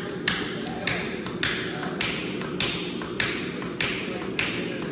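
Hand hammer striking red-hot knife steel on an anvil in a steady rhythm, about eight blows a little under two a second, over a steady low hum.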